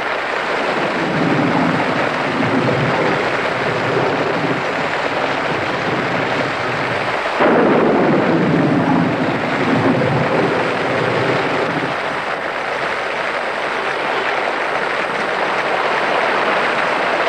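Heavy monsoon rain pouring steadily, with low thunder rumbling under it. A sudden louder crack of thunder comes about seven seconds in and rolls away over the next couple of seconds.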